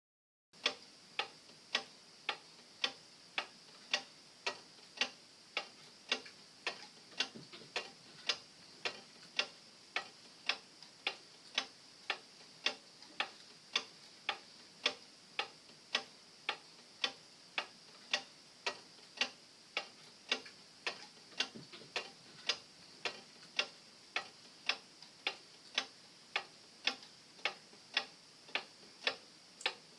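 Clock tick-tock warning sound: sharp, even ticks at about one and a half a second, starting about half a second in after silence, marking the last stretch of a countdown before the alarm rings.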